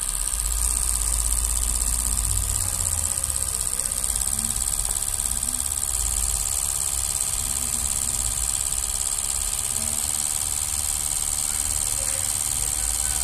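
Fuel injector test bench running a flow test, with four injectors spraying test fluid into graduated cylinders. It makes a steady mechanical hum with a low rumble and a strong, even high hiss.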